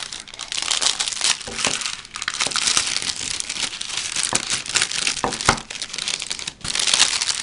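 Tissue paper wrapping crinkling and rustling as hands pull it open around a bar, with a few short knocks.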